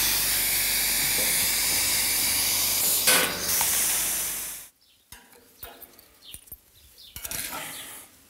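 Pneumatic blind-rivet gun hissing steadily with compressed air, with a short sharper burst about three seconds in. The hiss cuts off abruptly a little before five seconds, leaving faint clicks and taps of small metal parts being handled.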